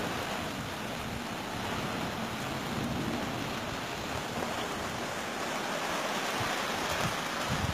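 Steady rushing of a rain shower and wind through the trees, an even hiss with no breaks.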